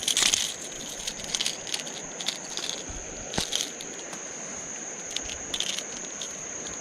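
Steady high-pitched insect trill, with scattered sharp clicks and crackles from a treble-hooked smallmouth bass being landed and handled.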